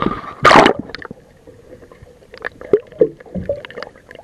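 A loud splash about half a second in as the microphone plunges under the sea surface, then muffled underwater gurgling and a few bubbly blips.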